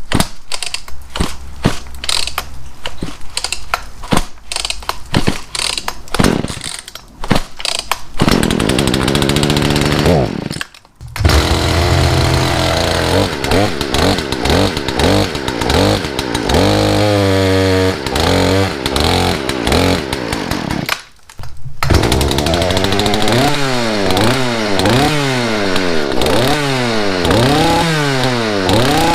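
Poulan Pro PPB3416 34cc two-stroke chainsaw engine being started: irregular sputtering and popping for several seconds, then it catches about eight seconds in and runs. It cuts out briefly twice, near eleven and twenty-one seconds in, and picks up again, then is revved up and down about once a second, not holding an idle, which the owner suspects is a flooding carburetor.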